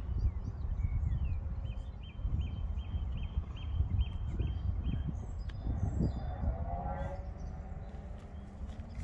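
Wind buffeting the phone's microphone with a steady low rumble, while a small bird repeats a short high note about three times a second for a few seconds, followed by a few other scattered chirps.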